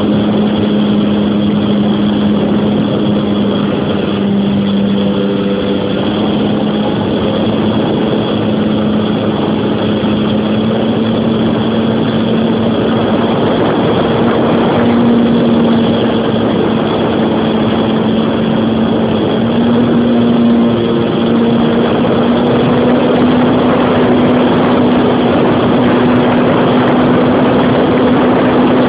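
Electric motor and propeller of a Tiger Stick RC model plane running steadily in flight, a constant hum whose pitch creeps slightly upward, over a rushing noise. It is picked up by a phone mounted on the plane's nose, right behind the spinning propeller.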